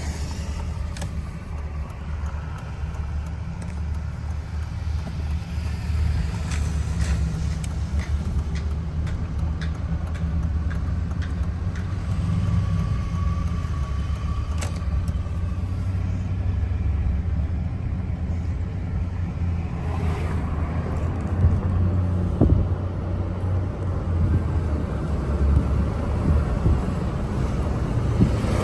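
Cabin noise of a car driving at low speed, a steady low rumble of engine and tyres, growing louder in the last several seconds.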